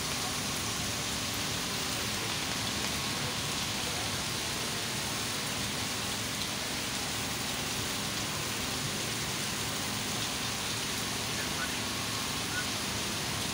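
Rainstorm: rain pouring down in a steady, unbroken hiss.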